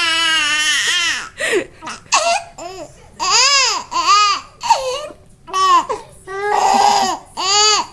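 Baby crying in fright: a long high wail that trails off in the first second, then a string of short sobbing cries, each under half a second, with one longer, rougher cry near the end.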